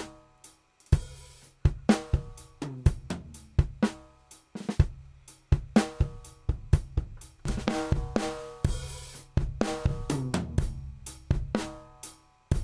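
Drum kit playing a groove of kick, snare, hi-hat and cymbals, the snare and toms ringing after each hit, with brief breaks about half a second in and near the end.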